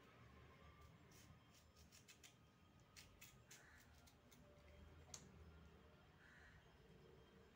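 Near silence broken by faint clicks of a kitchen knife cutting a hand-held cucumber: a quick run of clicks about a second in, a few more around three seconds, and one sharper click a little past five seconds.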